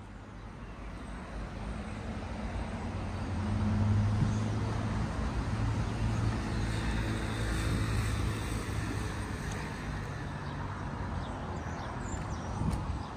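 Road traffic noise, with a motor vehicle's low engine hum swelling as it passes about four seconds in and then slowly fading.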